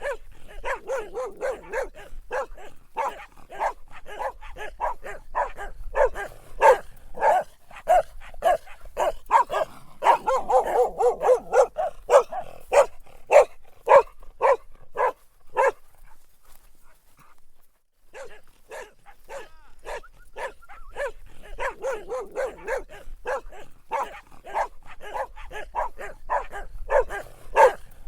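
Dog barking in rapid runs of short barks, several a second. The barking stops for about two seconds a little past halfway, then starts again.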